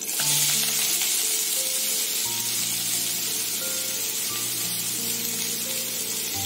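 Chopped onions tipped into hot oil in a frying pan, setting off a steady, high-pitched sizzle that starts suddenly as they land.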